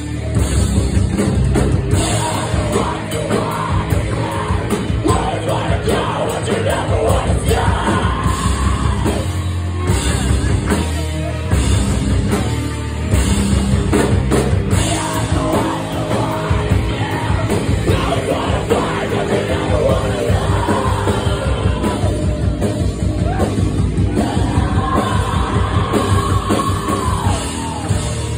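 Live rock band playing loudly: drum kit and bass guitar with a vocalist yelling and singing over them.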